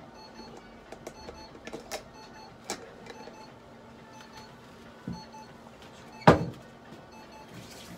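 A light-therapy unit beeping in short repeated tones over a steady low hum, with handling clicks and one loud sharp knock a little after six seconds in.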